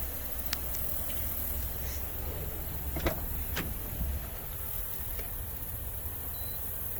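A few short clicks over a low, steady rumble: two faint ones about half a second in, and two sharper ones about three seconds in, half a second apart.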